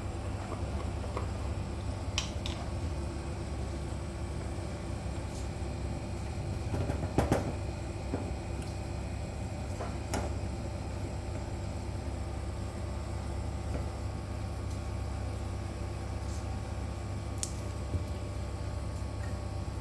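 Steady low hum with a few sharp clicks, and a short louder clatter about seven seconds in.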